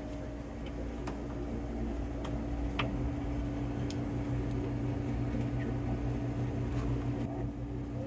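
Steady hum of running refrigeration equipment with a held low tone, growing slightly louder about three seconds in. A few faint clicks and taps from hands and tools on the cooler's sliding-door track.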